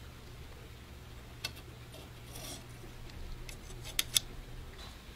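Small metal gun parts clicking against each other as they are handled and fitted together: a click about one and a half seconds in, then two sharper clicks close together about four seconds in, over a low steady hum.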